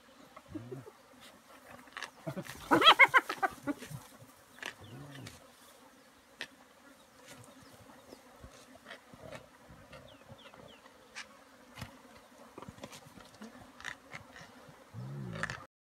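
Spotted hyenas growling low at each other as they feed on a giraffe carcass, with one louder, higher call about three seconds in and scattered sharp crunching clicks of feeding. A faint steady buzz of flies runs underneath.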